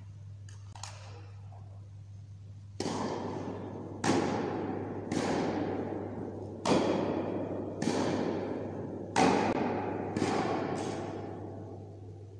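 A series of eight sharp bangs at uneven intervals, each echoing and dying away over a second or so in a large hall; the first comes about three seconds in and the last shortly before the end.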